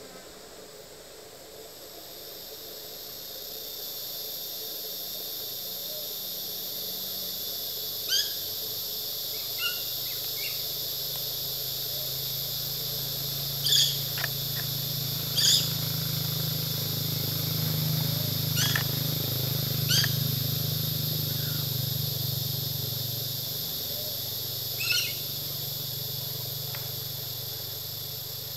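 Black-winged lory giving about seven short, sharp calls a few seconds apart while feeding, over a steady high-pitched hiss. A low hum swells and fades through the middle.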